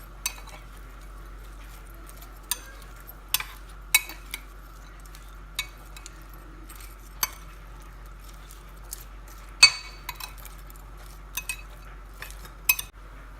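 A spoon clinking against a bowl now and then, about a dozen sharp, irregular clicks, as raw prawns are mixed with their marinade. A faint steady hum sits underneath.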